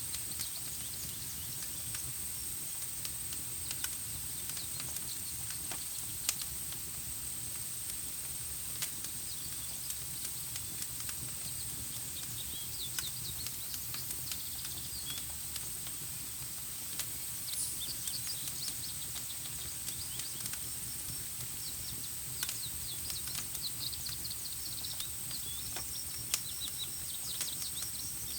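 Campfire crackling, with scattered sharp pops every second or two, over a steady high-pitched whine and bird chirps in the second half.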